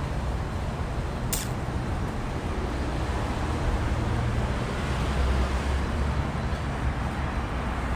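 Street traffic: cars idling and moving through a signalled intersection, a steady low rumble that swells about five seconds in. A short sharp hiss cuts through about a second and a half in.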